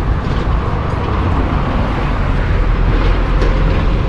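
Steady rush of water spraying over a toy bus as it is washed.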